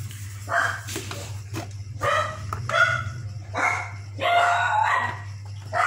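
A dog barking off and on, half a dozen short barks at uneven intervals, over a steady low hum.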